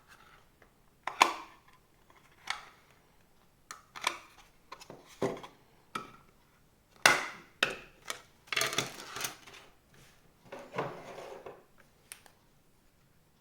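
A laptop hard drive and a plastic USB hard-drive enclosure being handled and fitted together: a series of sharp clicks and knocks, with two longer scraping, sliding sounds in the second half.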